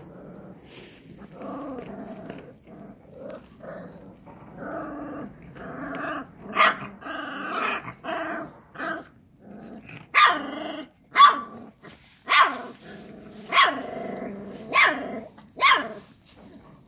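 Two Akbash puppies play-fighting, growling at each other with rough, wavering growls. In the second half come a run of short, sharp puppy barks, about one a second.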